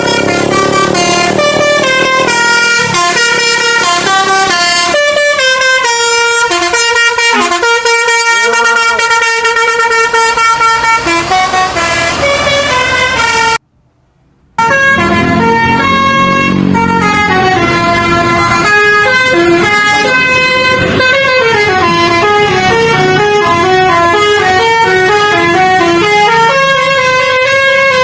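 Bus telolet horn, a Basuri multi-tone air horn, playing melodic runs of quick stepped notes. The sound breaks off for about a second roughly halfway through, then another horn melody starts.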